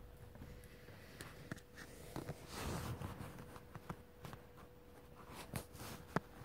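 Quiet stage during a blackout scene change: faint scattered knocks, clicks and shuffling, a little busier in the middle, over a steady faint hum.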